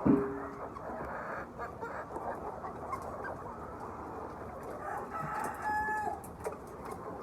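A flock of chickens clucking and calling. There is one loud, short, low call right at the start and a drawn-out higher call about five and a half seconds in.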